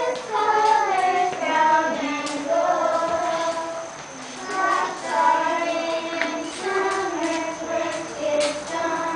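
A group of young children singing a song together, with long held notes.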